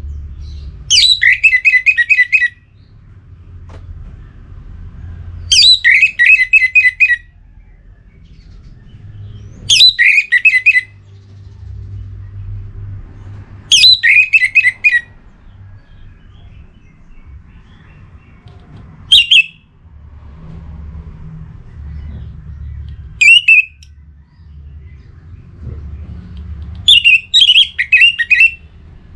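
Orange-headed thrush giving seven loud, trilled call phrases a few seconds apart, each dropping in pitch; most last about a second and a half, while the fifth and sixth are short. A faint low rumble sits beneath them.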